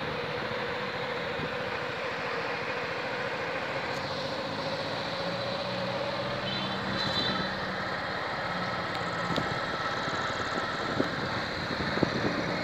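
Steady engine and road noise from a vehicle driving along a road, with a few faint clicks near the end.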